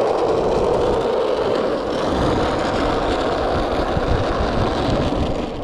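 Steady rumbling noise of running vehicles, like road traffic, that starts to fade near the end.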